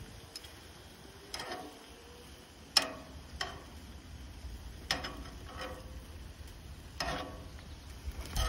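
Metal tongs clinking against a frying pan as a steak is turned and pressed, about half a dozen sharp clicks one to two seconds apart, the loudest about three seconds in.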